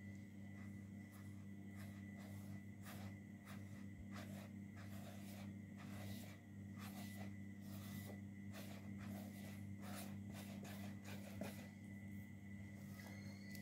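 Fingers smearing acrylic paint across paper in short, irregular scratchy swipes, over a steady low hum.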